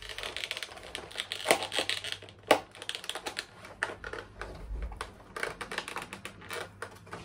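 Irregular clicks, taps and knocks of a model locomotive and its plastic packaging being handled, with two louder knocks in the first few seconds.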